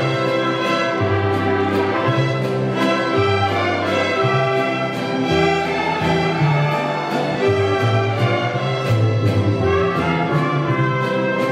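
Student mariachi ensemble playing an instrumental passage. A section of bowed violins carries the melody over a steady strummed guitar rhythm and a bass line.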